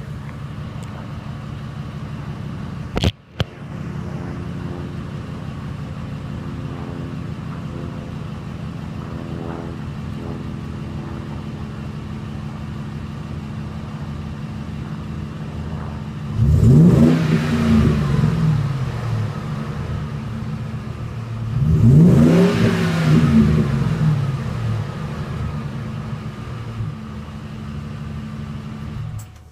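2006 Ford F-150's 5.4-litre V8 running through a Borla Turbo XL straight-through cat-back exhaust with dual rear exits, idling with a deep, aggressive tone. It is revved twice, about 16 and 22 seconds in, each rev climbing and falling back to idle over a few seconds and much louder than the idle. A brief knock about three seconds in.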